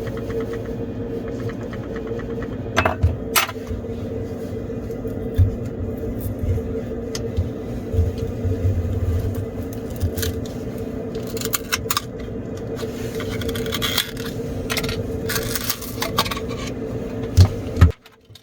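Rattling noise from inside a Samsung Galaxy S22 Ultra phone: irregular light metallic clicks and rattles over a steady hum. The hum stops sharply near the end.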